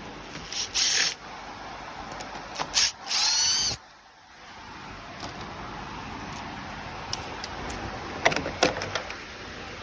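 Cordless power drill running in short bursts, about a second in and again around three seconds in, the last and longest with a whine rising as the motor spins up. A few sharp clicks follow near the end.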